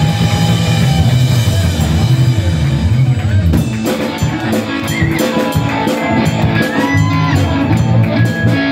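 Live punk rock band playing loud: distorted electric guitar, electric bass and drum kit.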